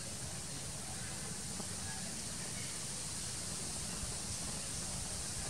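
Steady outdoor background noise: an even hiss over a low rumble, with no distinct event standing out.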